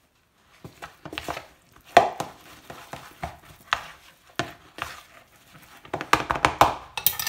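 A spoon knocking and scraping against a mixing bowl as flour-coated chicken strips are tossed and mixed by spoon and hand. The taps come irregularly and grow busier near the end.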